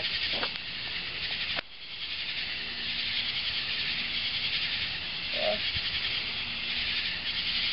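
Lit fuses of three Black Cat firecrackers hissing and sputtering steadily. The hiss cuts out for a moment about a second and a half in, then carries on.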